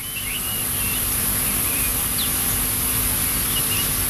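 Outdoor ambience: a few short bird chirps and whistles scattered through, over a steady high-pitched hiss.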